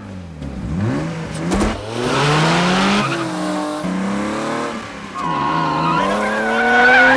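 BMW M5's straight-six engine revving hard under acceleration through several gear changes, the pitch climbing and dropping back at each shift, with a sharp knock about a second and a half in and tyres squealing near the end.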